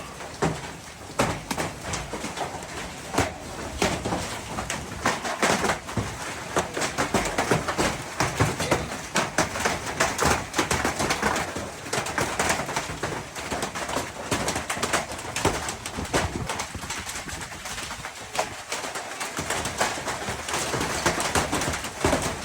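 Hailstorm: a dense, continuous clatter of hailstones and rain striking hard surfaces.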